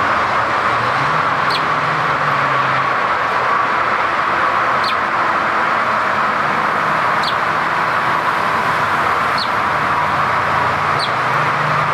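Short, high bird chirps, one every two to three seconds, over a steady background of traffic-like noise with a low engine hum that comes and goes.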